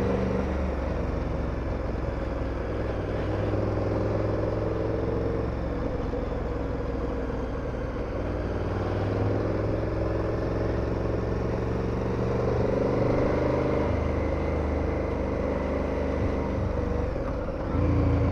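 KTM 1290 Super Adventure's V-twin engine running on the move, its pitch slowly rising and falling with the throttle, and louder under throttle just before the end.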